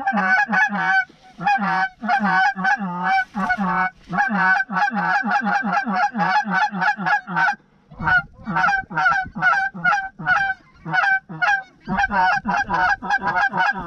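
Goose honking, a rapid run of short, evenly repeated honks, several a second, broken by brief pauses about eight and twelve seconds in.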